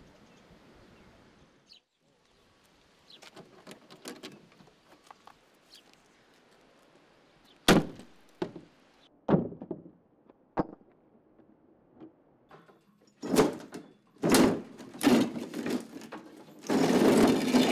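Faint rustling, then three sharp knocks about a second and a half apart as a brick is struck against the padlock of a weathered wooden shed door. A burst of loud clattering and a longer scraping rush follow as the door is forced open.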